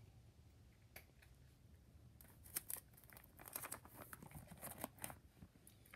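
Plastic binder sleeve pages crinkling and crackling faintly as a page is turned, a run of quick soft crackles from about two seconds in until near the end.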